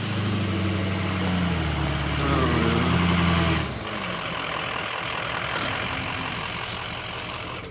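Motor vehicle engine running under load, its pitch rising as it revs about two seconds in, then cutting back sharply about halfway through, leaving a steady rushing noise.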